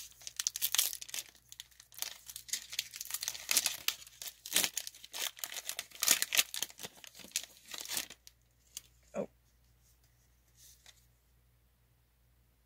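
A Pokémon Sword and Shield booster pack's foil wrapper being torn open and crinkled in the hands, a dense crackling that stops about eight seconds in, followed by a few soft clicks.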